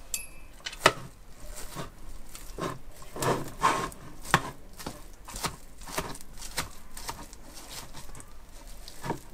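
Metal fork and spoon scraping and tapping on a plastic cutting board as cooked chicken breast is pulled apart, in irregular strokes with a sharp click about a second in.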